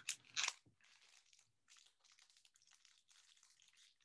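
Foil wrapper of a Topps baseball card pack crinkling as it is picked up off the stack and worked open. Two sharp crackles come in the first half second, then quieter, continuous crinkling.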